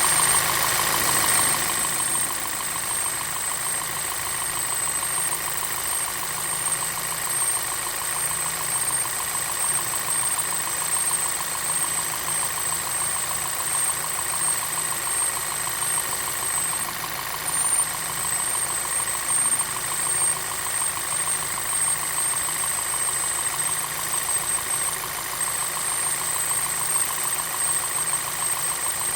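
Volkswagen 2.0T TSI (EA888) four-cylinder engine idling steadily with a rattling clatter that the owner takes for timing chain rattle. The cause is unknown, since the tensioner is already the new style. A thin, high-pitched whine runs under the engine.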